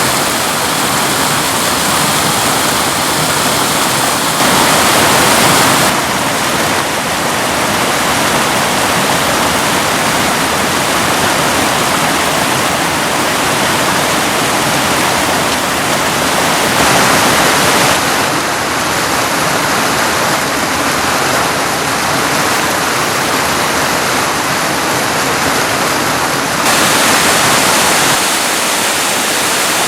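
Mountain river rushing over rocks: a steady, loud wash of water that changes abruptly in tone a few times.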